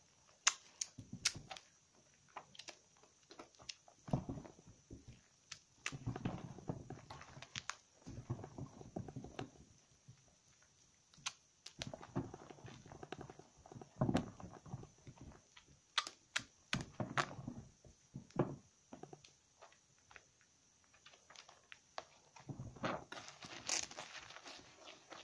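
Hands lathering slightly soaked bars of laundry soap and a sponge in a basin of thick foam, the wet lather squishing in irregular bursts with short sharp clicks between pauses.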